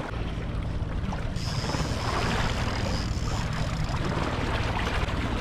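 Boat motor running steadily at trolling speed, a low even hum under the rush of water and wind noise.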